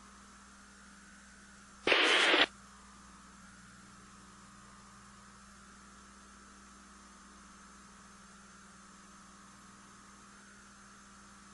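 Steady radio-channel hiss and hum with a faint wavering whistle. About two seconds in comes one loud half-second burst of static.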